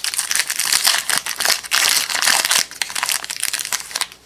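Wrapper of a trading-card pack crinkling and crumpling as it is torn open and handled, a loud, continuous crackly rustle.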